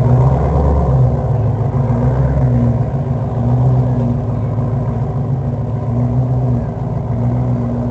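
Motor vehicle engine running at low speed, a steady low rumble with a slightly wavering pitch.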